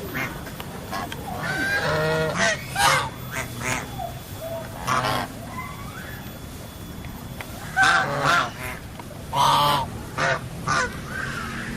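White domestic geese honking: a run of loud, repeated honks from about two to five seconds in, then another run from about eight to eleven seconds in.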